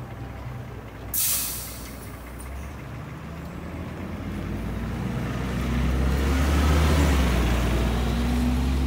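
City bus: a sharp hiss of compressed air from its pneumatic system about a second in, then its engine's low drone builds as the bus pulls away.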